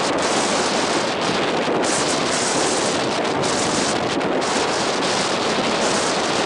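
Wind blowing across the camera microphone: a loud, steady rushing hiss.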